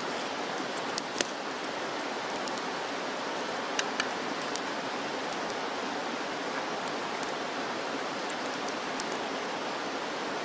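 Steady outdoor background hiss, with a few faint clicks about a second in and again near four seconds.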